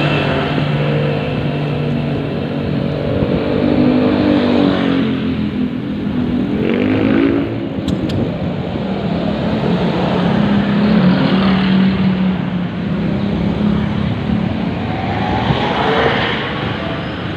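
Street traffic heard from a moving bicycle: motorcycle and other engines passing close by, their pitch sweeping up and down several times as they go past.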